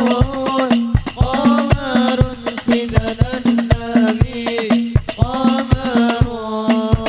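Sholawat devotional singing by a group, with frame drums (rebana) beaten in a steady rhythm, deep strokes about two a second under the sung melody.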